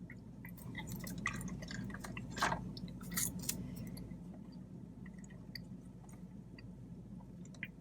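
A person chewing food, with scattered small clicks through the chewing.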